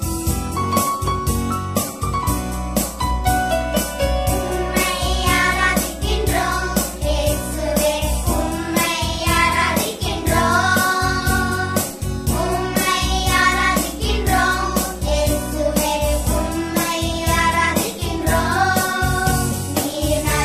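A small group of children singing together over an instrumental backing track with a steady beat. The voices come in about four seconds in, after the instrumental introduction.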